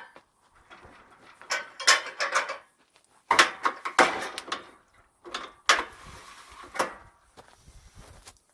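Metal clanks, knocks and rattles of tools and sawmill parts being handled, a string of separate sharp strikes with the loudest about three to four seconds in.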